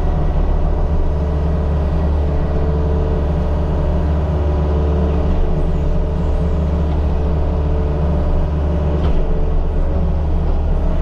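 Diesel engine of a mini excavator running steadily under load while it backfills a trench, with a single short knock about nine seconds in.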